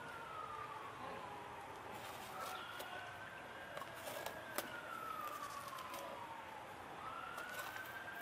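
A siren wailing faintly, slowly rising and falling in pitch about every four to five seconds, with a couple of light knocks.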